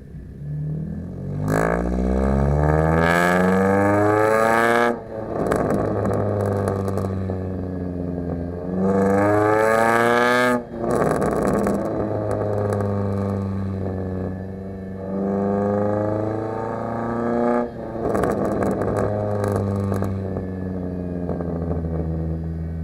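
A 2011 Kia Forte EX's four-cylinder engine and exhaust being revved several times, the pitch climbing and cutting off sharply, then dropping back towards a steady run. Pops and crackles come from the exhaust as the revs fall.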